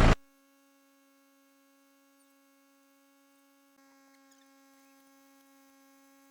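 A running tractor engine cuts off abruptly right at the start, leaving near silence with only a faint, steady electrical hum.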